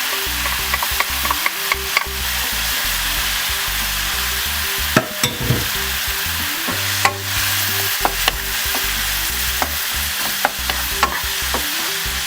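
Garlic, tomato and surimi sizzling in oil in a frying pan as they are stirred, with a steady hiss and scattered sharp clicks of the utensil against the pan.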